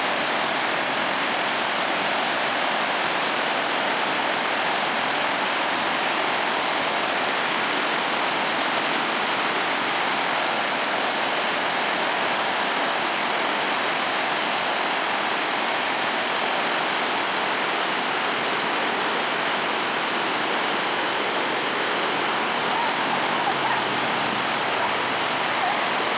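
Swollen river floodwater churning in fast, turbulent rapids past a washed-out earth embankment: a loud, steady rush of water.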